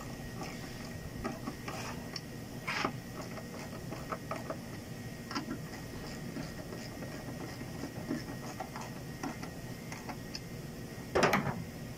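Irregular small metal clicks and ticks of a hand tool working on the wiper linkage inside the cowl, with a louder, longer clatter about eleven seconds in.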